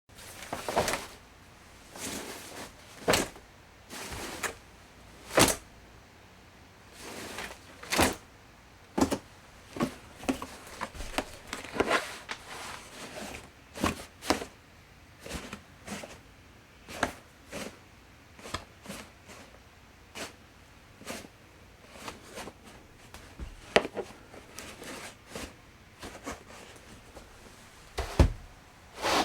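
Laundry basket being handled and moved: a long irregular series of knocks, taps and bumps, some sharp and loud, with short pauses between.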